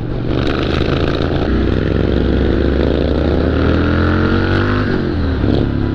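Triumph Street Scrambler 900's parallel-twin engine running through a Zard exhaust, pulling hard under acceleration. About a second and a half in, its pitch starts climbing steadily for some three seconds, then falls away sharply about five seconds in.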